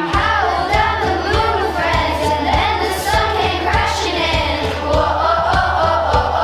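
A song with a choir of voices singing over a steady beat of about two pulses a second.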